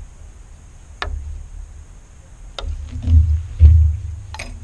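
Wooden kayak frame being handled while a stringer is lashed to a frame with cord: scattered light clicks and knocks, with low thumps, the loudest about three and a half seconds in.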